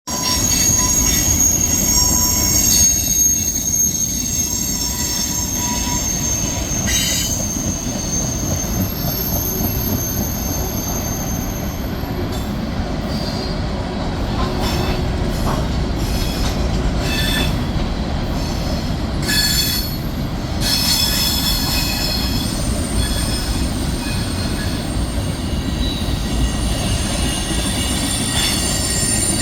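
Freight train running on the rails: a steady low rumble of cars and wheels, with high, thin wheel squeal coming and going over it. The squeal is strongest in the first twelve seconds and returns after about twenty seconds.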